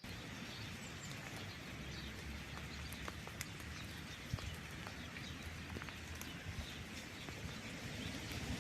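Steady rain falling, with many scattered drips tapping, and small birds chirping faintly through it.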